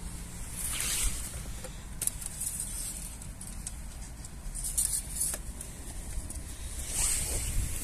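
Low steady car rumble, with short hissy bursts of wind or handling noise on the microphone.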